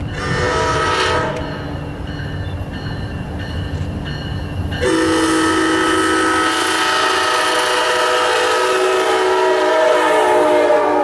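Air horn of an approaching VRE commuter train's diesel locomotive, sounding several notes at once. There is a short blast at the start, then a long, loud blast from about five seconds in that holds as the locomotive passes close by. A low engine rumble runs under the first half.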